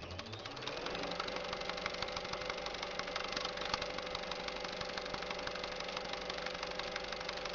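Movie film projector running: a rapid, even mechanical clatter over a steady hum, after a rising whine at the very start as it comes up to speed.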